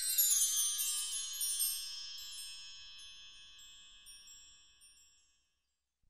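High metallic chimes ringing out at the end of a descending run, their many overlapping notes slowly fading to silence a little after five seconds in.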